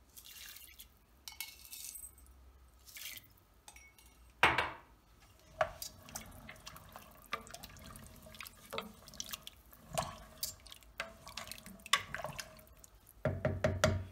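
Wooden spoon stirring a watery stew in a stainless steel pot, liquid sloshing with irregular knocks and clinks of the spoon against the pot; the loudest knock comes about four and a half seconds in.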